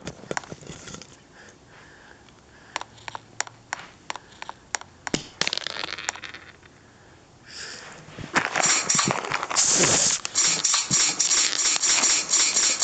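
Scattered light clicks and taps, then from about eight seconds in a loud, rapid crinkling of plastic packaging being handled.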